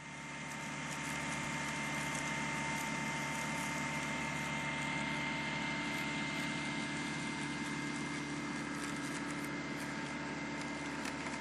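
Compact tractor engine running at a steady speed, with a steady high whine over it.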